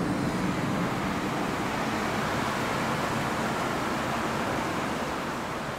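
Volcanic steam vents at a hot-spring field hissing steadily, an even rushing noise that eases off slightly near the end.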